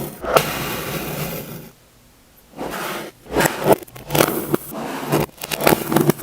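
Kinetic sand being scraped and cut with a tool. One continuous scrape, a brief pause about two seconds in, then a run of short, irregular scraping strokes.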